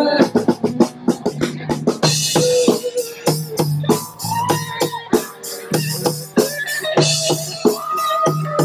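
Rock band playing live: electric guitar lines over an electric bass and a drum kit keeping a steady, fast beat.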